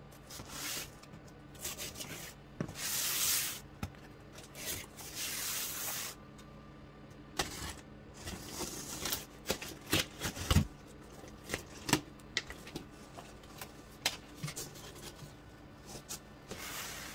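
Rubbing and scraping strokes, then a run of short sharp clicks and knocks, like hard objects being handled and set down.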